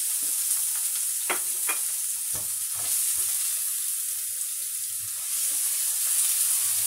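Chopped onion and garlic sizzling steadily in hot oil in a non-stick frying pan. A spatula stirs them, knocking against the pan several times between about one and three seconds in.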